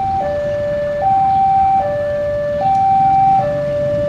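Railway level-crossing warning alarm sounding a two-tone hi-lo pattern, a higher and a lower tone alternating about every 0.8 s, which signals that a train is approaching the crossing.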